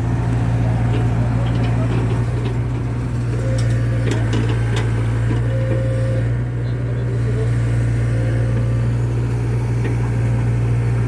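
Excavator's diesel engine running steadily with a constant low hum, with a few light clicks in the first half.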